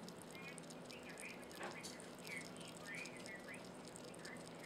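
Sugar glider licking and chewing an Oscar Mayer sausage, making faint wet clicks and smacks as it sucks out the juice. Short faint chirps come and go throughout, over a steady low hum.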